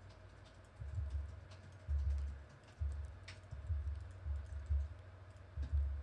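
Computer keyboard and mouse being worked, heard mostly as dull low thumps every second or so, with a few faint sharper clicks.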